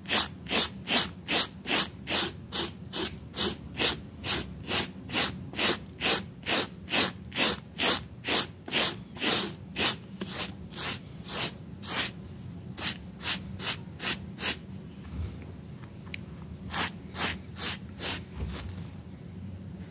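A hand brush scrubbing a wet, muddy rug in quick, regular back-and-forth strokes, about two to three a second. The strokes stop for about two seconds around two-thirds of the way in, resume briefly, then stop shortly before the end.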